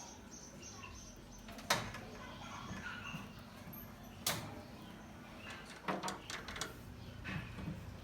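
A few sharp knocks and clicks, single ones about two seconds and four seconds in and a quick cluster near the end, over faint background voices.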